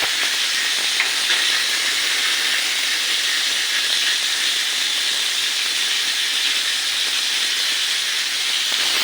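Water gushing steadily from a newly connected water pipe, a continuous hiss: the new connection is delivering water.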